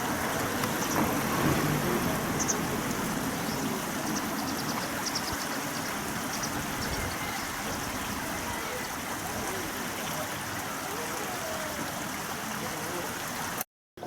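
Steady rushing and burbling of the flowing river water, with faint short high chirps of small birds now and then in the first half. The sound cuts off abruptly just before the end.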